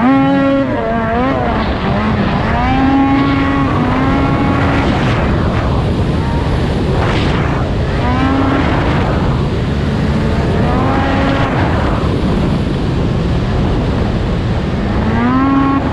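Ski-Doo race snowmobile's two-stroke engine revving up and dropping back again and again under throttle, over a steady rush of track and wind noise.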